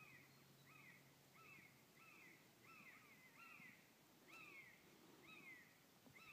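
A faint bird calling over and over, a short rising-and-falling note about every two-thirds of a second, some nine calls in all.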